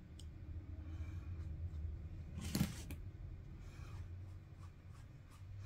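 Faint handling sounds of a paintbrush dipped into a glass ink bottle and then brushed across paper, with one brief sharper tap about two and a half seconds in. A low steady hum runs underneath.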